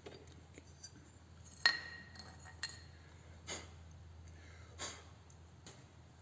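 A few light clinks and taps of small hard objects being handled, the sharpest a ringing clink about a second and a half in.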